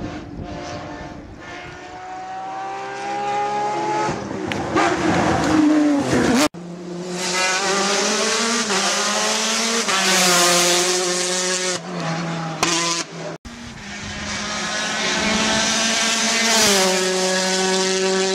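Rally cars driven flat out on a tarmac stage, a Porsche 911 and a Citroën DS3 R5 among them. The engines rev hard, their pitch climbing and dropping with gear changes and lifts off the throttle. The sound cuts off abruptly twice as one car gives way to the next.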